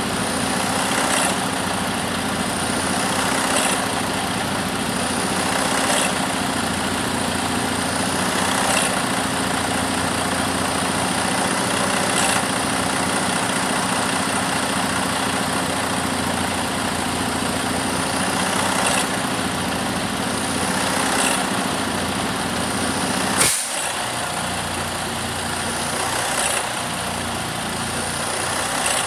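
2013 Detroit DD13 inline-six diesel engine idling steadily, with a short hiss every two to three seconds and one sharp click near the end.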